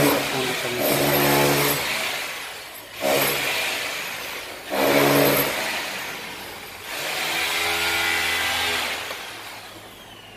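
A motor-driven machine running in about four bursts of a second or two, each swelling and fading: noise from other work going on nearby.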